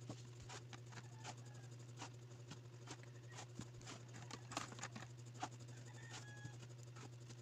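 Faint, irregular clicks, taps and rustles of small parts being handled: a clear plastic case, a soft pouch, a coiled cable and a small microphone clip. A steady low hum runs underneath.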